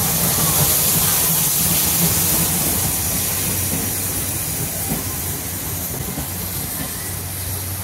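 Steam locomotive C11 123, a JNR C11 tank engine, hissing steam as it rolls slowly past, followed by a brake van and coaches rolling by. The sound fades gradually as the locomotive moves away.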